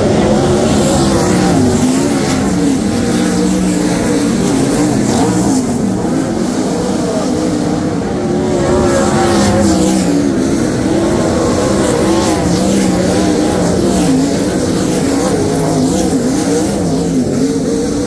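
A pack of winged sprint cars racing on a dirt track, their V8 engines running loud and continuous, the pitch rising and falling as they power around the turns.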